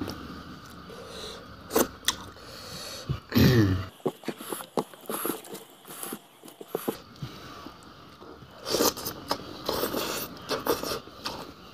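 Close-up eating sounds: chewing and crunching, with scattered clicks and scrapes and a louder burst about three and a half seconds in.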